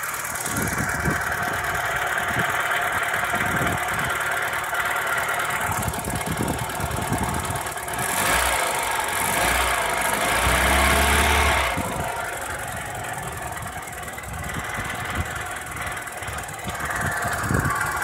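Opel Astra F's 1.4 8-valve C14SE four-cylinder petrol engine running with a loud whirring noise, a rasping rattle and irregular knocks, which the owner first took for bottom-end wear but traced to a failing coolant (water) pump. The sound grows louder for a few seconds in the middle.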